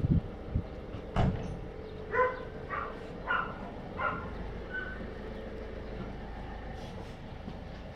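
Puppies giving five short, high yips, about one every half second, between about two and five seconds in, with a single sharp click about a second in.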